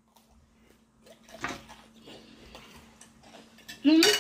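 Near silence, then faint scattered clicks and taps of utensils on dishes as people start eating, with a short burst of voice near the end.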